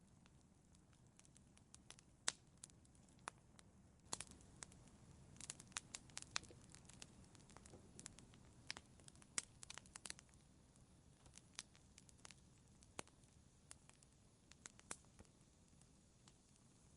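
Fire crackling in a fireplace: irregular sharp pops and snaps over a soft low hiss of flame, coming thickest in the middle of the stretch and thinning out towards the end.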